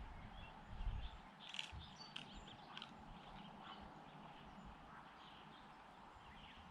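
Scattered faint bird chirps and calls, with a low thump about a second in.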